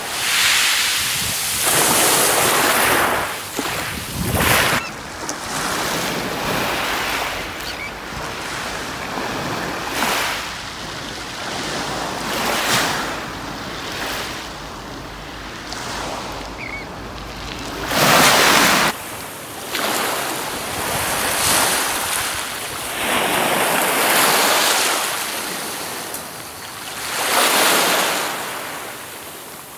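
Small waves breaking and washing up a shingle beach, each wash swelling and fading every few seconds. Wind rumbles on the microphone through roughly the first two-thirds.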